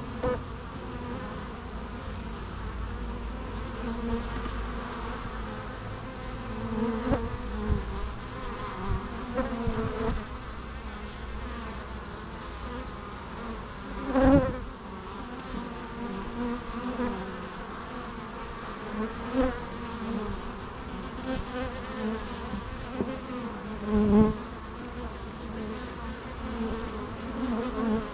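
Bees buzzing steadily in a continuous hum, with single bees swelling louder as they pass close several times, loudest about halfway through and again a few seconds before the end.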